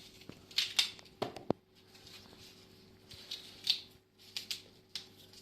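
Black radish being hollowed out by hand: a blade scraping and cutting into the crisp flesh in short, faint, irregular strokes, with a few light clicks about a second in.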